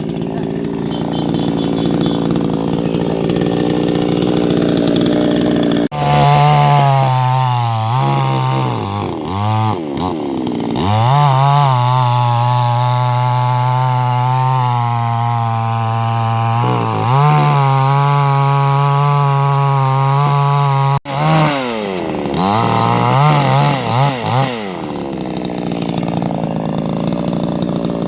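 Chainsaw running: it idles at first, then about six seconds in is revved hard and held at high speed, with the pitch dipping and recovering several times. It drops out abruptly for an instant about two-thirds of the way through, revs again, and settles back toward idle near the end.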